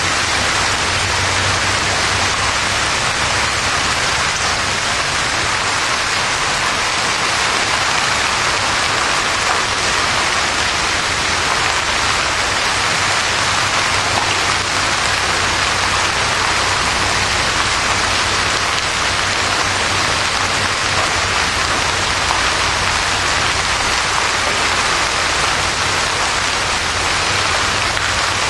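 Heavy rain and hail pouring down onto pavement, a steady, dense hiss that does not let up.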